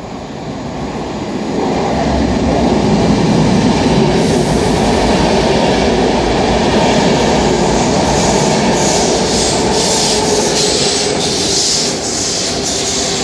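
City Airport Train, double-deck coaches with an ÖBB Taurus electric locomotive, running through an underground station without stopping. The rumble swells over the first couple of seconds as the train comes in, then holds loud and steady as the coaches pass. In the last few seconds a hiss pulses about twice a second as the locomotive goes by.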